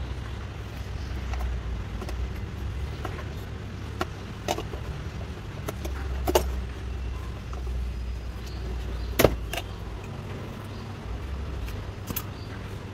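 Scattered sharp clicks and small knocks of plastic wiring-harness connectors and clips being handled and unplugged under a Mazda CX-5's dashboard, the loudest about nine seconds in, over a steady low hum.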